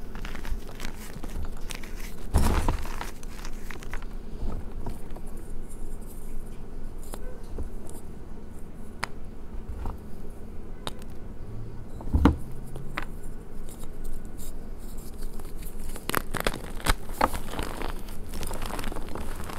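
Hands crushing and squeezing crumbly reformed gym chalk, powder and broken chunks, making dense crunching and crackling. The middle is quieter, with scattered small cracks and one sharp crunch about twelve seconds in, and the crunching grows dense again near the end.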